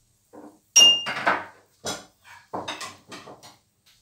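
Metal kitchenware clattering: a sharp knock with a short metallic ring about a second in, then several more clinks and knocks.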